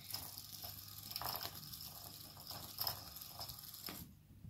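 Faint soft taps and rustling as a kitten bats at and catches a small plastic flying propeller from a cat launcher toy.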